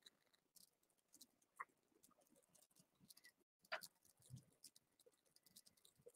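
Near silence: quiet room tone with a few faint, short clicks, the clearest about one and a half seconds in and near the middle.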